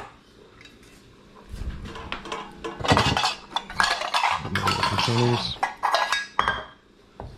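Cookware being handled: a small enamel-lined pot picked up and moved, with irregular knocks and clinks of pots and utensils starting about a second and a half in.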